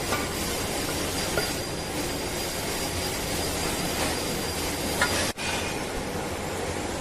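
Steady workshop machinery noise with a few light metallic clinks. The sound cuts out for a moment about five seconds in.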